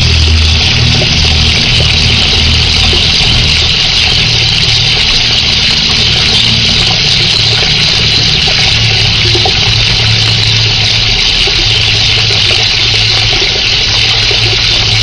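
Water pump running: a steady low hum with a loud hiss above it.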